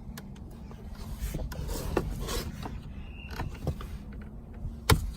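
A prying tool scraping and rubbing against the plastic radio trim panel of a Honda Civic dash as it is worked at, with a few small ticks and one sharp click near the end.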